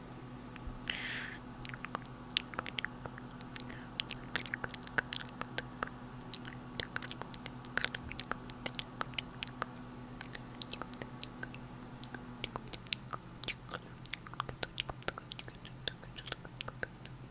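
ASMR mouth sounds made right against a lavalier microphone: a quick, irregular run of wet mouth clicks and tongue taps, with a brief hiss about a second in.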